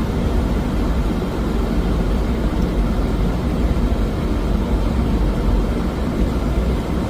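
Steady flight-deck noise of a Boeing 737NG on final approach: airflow rushing past the nose and the drone of its CFM56-7B engines, even throughout with no distinct events.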